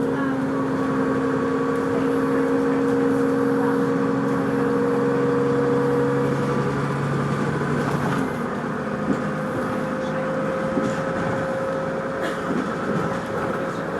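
Vehicle running, with an odd noise: several steady whining tones over the running noise, shifting in pitch about halfway through.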